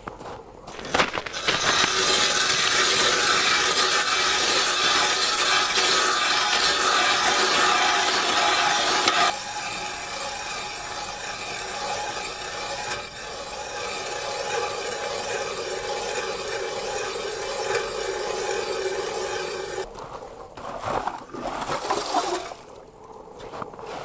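Hand ice auger boring a hole through reservoir ice: a steady grinding scrape of the blades cutting ice, loudest for the first several seconds, then somewhat quieter until it stops about 20 seconds in. A few short scrapes follow near the end.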